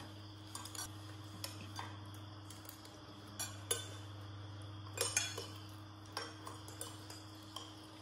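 Spoons and forks clinking against ceramic plates as people eat, in scattered light clinks about once or twice a second, over a steady low hum.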